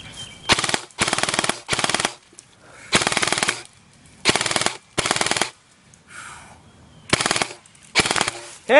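Airsoft electric guns firing full-auto: about eight short bursts of rapid clicking shots, each under half a second long.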